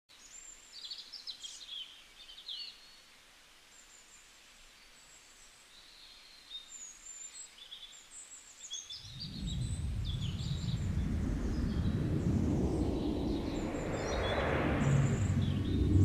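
A flock of small birds chirping over a quiet background. About nine seconds in, a low, even rumbling noise starts and grows louder, drowning out everything but the highest chirps.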